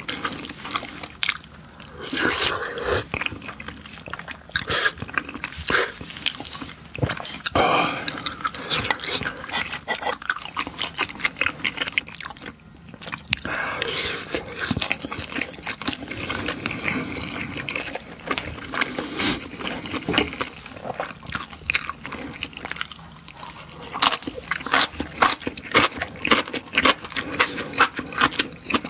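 Close-miked chewing of spicy tteokbokki, chewy rice cakes in thick sauce: wet smacking and sticky mouth clicks, many and sharp, busiest near the end.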